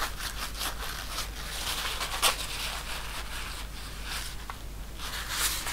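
Paper towel rubbing and rustling as a small electric motor's armature and copper commutator are wiped clean, in a run of short scratchy strokes, the strongest about two seconds in and another near the end.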